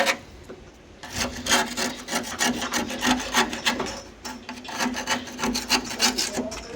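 A screwdriver scraping packed dirt and rust out of the inside of a steel car door, in quick repeated strokes that start about a second in.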